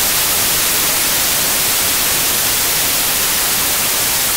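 TV static: a loud, steady white-noise hiss with a sharp, high edge and no change through the stretch.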